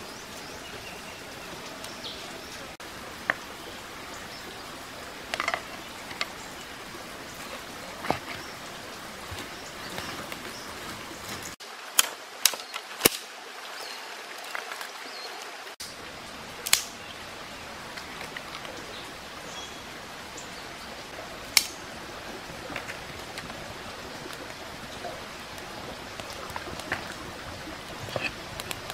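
Steady background rush of a flowing stream, with scattered sharp clicks and knocks from a wooden spoon in a clay bowl and dry twigs being handled and laid on ashes.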